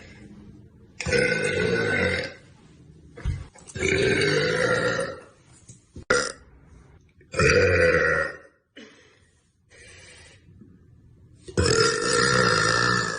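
A young woman belching: four long, loud burps, each lasting about a second and spaced a few seconds apart, with a sharp click between the second and third.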